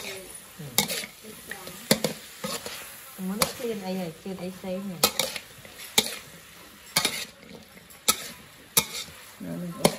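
Metal spatula stirring lotus strips and pork in a steel wok, clinking sharply against the pan about once a second over a steady sizzle of frying.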